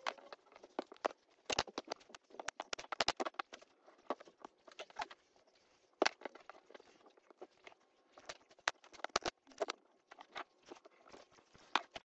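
Thin pine beehive-frame bars clacking and knocking against each other and the table as they are handled, a run of irregular sharp wooden clicks, several a second at times, with short pauses between.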